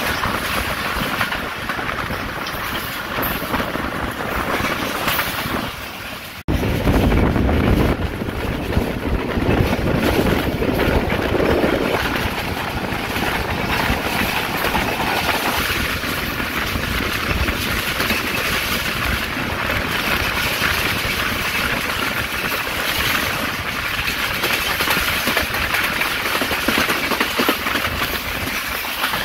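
Shalimar Express passenger train running at speed, heard from on board: a steady rumble and rattle of the wheels on the rails. It cuts out abruptly about six seconds in, then comes back with a louder low rumble for several seconds before settling.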